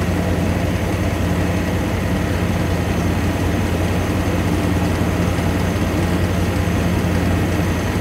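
A Chevrolet's engine idling steadily under the open hood, with the air conditioning switched on for a refrigerant recharge.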